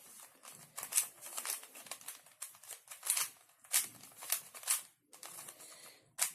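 Plastic Rubik's cube layers being turned by hand: a quick, irregular series of sharp clicks and clacks, pausing briefly about five seconds in.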